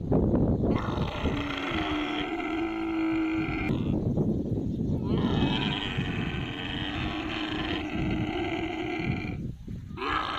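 Young dromedary camel calf crying in distress while held for a haircut: two long, drawn-out bawls with a short break between, and a third starting near the end.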